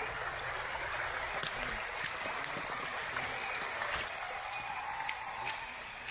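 Steady rush of flowing water, with a few light clicks.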